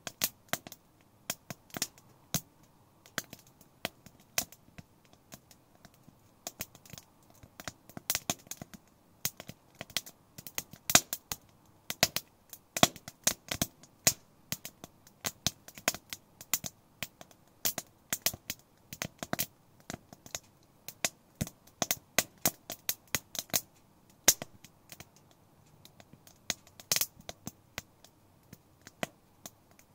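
Firewood crackling and popping as it burns in a titanium wood stove: sharp, irregular pops, several a second, some much louder than the rest.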